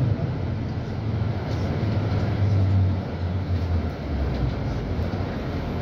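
Cabin noise of a VDL Berkhof Ambassador 200 city bus on the move: its diesel engine's low hum rising and falling, mixed with road and body rumble.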